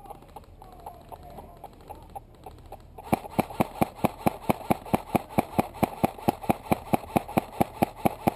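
Airsoft rifle firing a rapid string of single shots, about four a second, starting about three seconds in as sharp, evenly spaced cracks. Before that only faint scattered clicks.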